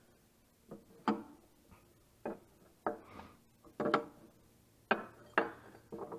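Irregular sharp metal clanks and knocks, roughly one a second, some ringing briefly: tools and wheel hardware being worked while mounting tractor dual wheels.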